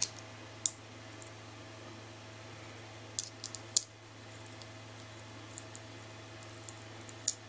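Small sharp clicks and taps of a fidget spinner's caps and tiny bearing being handled and fitted back together, a few scattered clicks with pauses between them. A steady low hum runs underneath.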